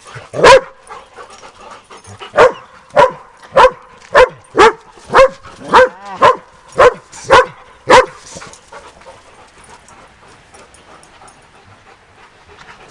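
A dog barking repeatedly, about a dozen loud barks roughly half a second apart, which stop about 8 seconds in.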